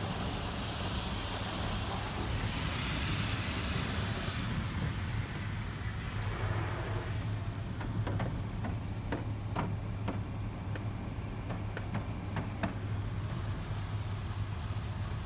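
Automatic car wash spray heard from inside the car: a loud hiss of water against the windows for the first four seconds or so, then it fades to scattered drips and taps on the glass and body. A steady low hum runs underneath.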